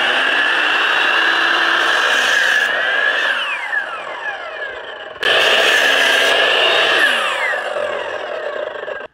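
Compound miter saw making two angled cuts through a wooden post. The saw runs through the first cut, then its motor winds down with a falling whine about three seconds in; it starts again for the second cut a little after five seconds and winds down again near the end.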